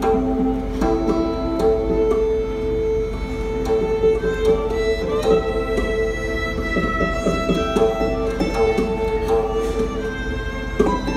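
Live acoustic string music: guzheng and hammered dulcimer plucked and struck in quick notes, with a violin holding long notes over them.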